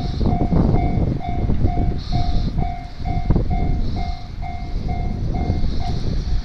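Japanese railway level-crossing alarm ringing its repeated electronic bell tone, about two strokes a second, over a loud low rumble.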